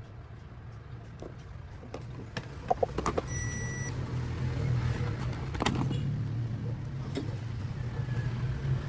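Small clicks and taps of wires and tools being handled over a steady low rumble that grows louder about three seconds in.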